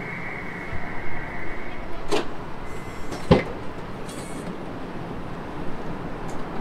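Toyota JPN Taxi's power sliding rear door unlatching with a sharp knock and a heavier clunk, then sliding open. A steady high tone fades out about two seconds in.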